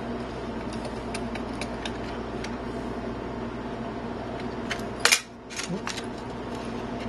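Small scattered clicks and taps from handling a Dell Latitude D600 laptop while opening it up to reach the RAM, with one sharper click about five seconds in, over a steady low hum.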